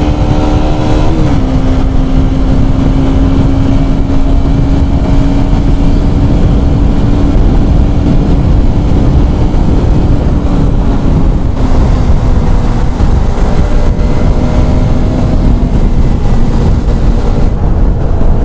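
KTM Duke 125's single-cylinder engine droning at riding speed, heard from the saddle over heavy wind rush on the microphone. The engine note dips a little about a second in, holds steady, then slowly falls in pitch over the second half as the bike slows.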